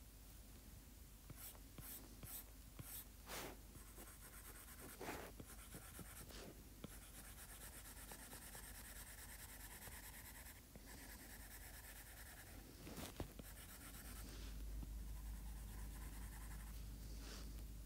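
Faint scratching and tapping of a stylus nib drawing on an iPad's glass screen: a series of short hatching strokes, then longer continuous strokes.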